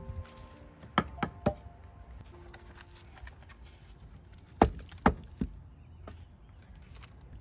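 Split firewood logs knocking together as they are pulled from a stacked woodpile: three wooden clunks about a second in, then three more a few seconds later.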